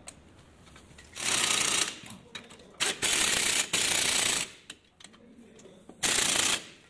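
Cordless impact wrench hammering on bolts at a truck's front wheel hub, in three bursts: a short one about a second in, a longer one of about a second and a half near the middle, and a short one near the end.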